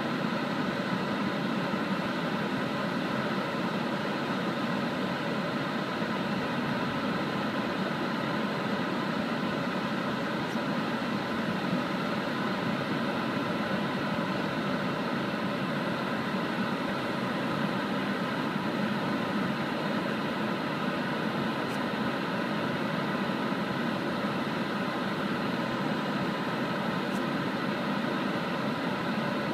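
Steady road and engine noise from inside a moving car's cabin, an even rushing drone with no change in level.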